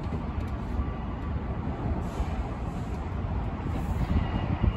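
New York City subway train (L train) running on elevated track, a steady low rumble.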